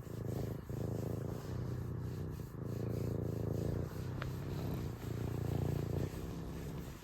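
A serval purring: a continuous low, rumbling purr with brief breaks about every second as it switches breath.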